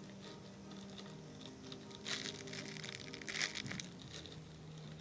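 Soft background music with steady held tones, overlaid by crinkly rustling as a squishy toy is handled, loudest in two bursts about two and three and a half seconds in.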